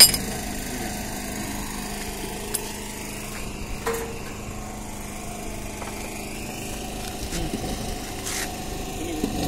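A small engine or motor running steadily with a constant low hum, with a few light knocks as the clamps of a pipe butt-fusion machine are handled.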